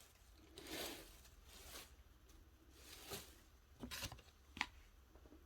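Paper and craft supplies rustling as they are handled, with a few short clicks, the sharpest about four and a half seconds in.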